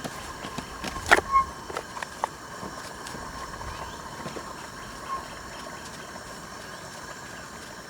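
A steady background hum, with a few light clicks and knocks about a second and two seconds in.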